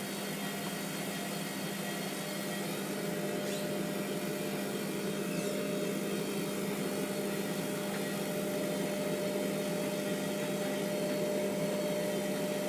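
Hotpoint Aquarius WMF720P washing machine running with a steady mechanical hum and a constant tone, slowly growing a little louder, while it works through a heavily oversudsed load.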